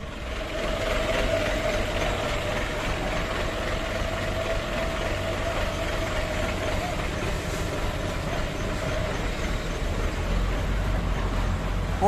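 Mitsubishi Fuso Fighter dump truck's diesel engine running steadily with a constant whine while the truck unloads its bed; the whine fades out about nine seconds in.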